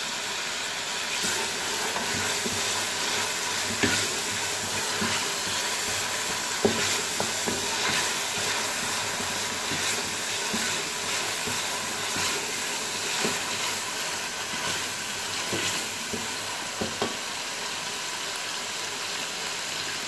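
Oil sizzling steadily in a pressure cooker as fried onions, whole spices and chopped green chillies are stirred with a wooden spatula. Now and then the spatula knocks and scrapes against the pot.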